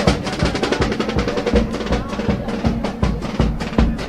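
Chirigota carnival group playing an instrumental passage: bass drum and snare drum keep a brisk, steady beat under a sustained melodic line.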